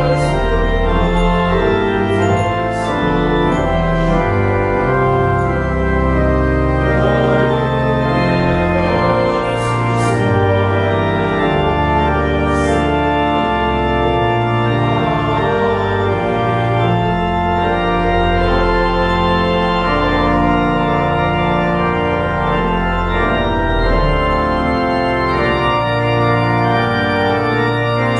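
Church organ playing slow, sustained chords over held deep bass notes, the chords changing every second or two.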